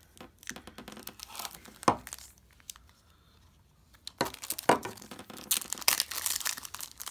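A knife scratching and clicking at a small plastic trading-card pouch, with one sharp click near two seconds in. After a short pause, the crinkly pouch is torn open by hand with a dense crackling.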